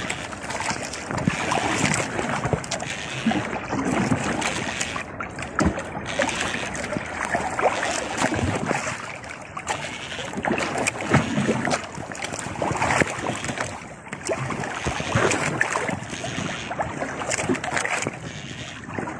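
Choppy sea water splashing and slapping irregularly against the hull of a small outrigger boat, a surging wash of noise with frequent sharp splashes.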